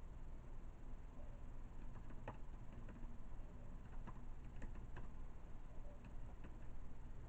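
Scattered, irregular keyboard clicks of slow typing, a few keystrokes a second apart, over a low steady room hum.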